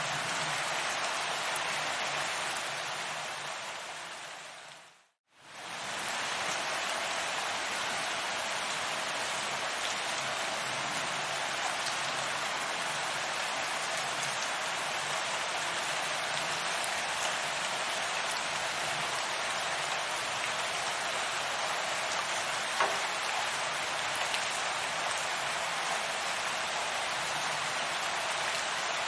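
Steady rain falling as an even hiss. About four seconds in it fades smoothly to silence and swells back within about a second, as at the loop point of a recording. One small drop tick stands out near the end.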